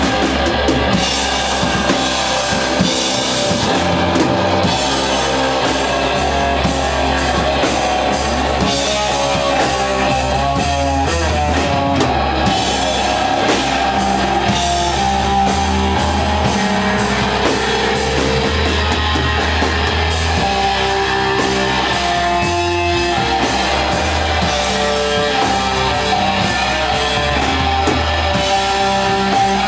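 Doom metal band playing live: heavily fuzzed electric guitar through a Matamp GT1 valve amp and 1x15 cabinet, holding long, sustained notes over drums and cymbals.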